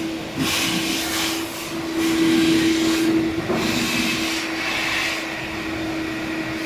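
Steady machine hum with a constant mid-pitched tone, overlaid by a rushing hiss that swells and fades three times.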